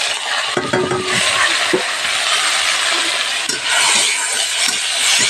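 Boiled bitter gourd pieces sizzling steadily in hot oil in a kadhai, freshly added over fried green chillies, with a few clinks and scrapes of a stirring spoon against the pan.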